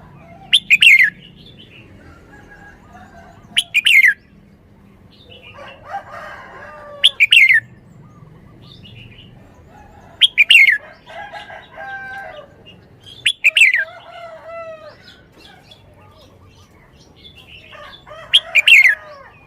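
Red-whiskered bulbul singing: six loud, short phrases that fall sharply in pitch, about every three seconds, with softer warbling notes in between.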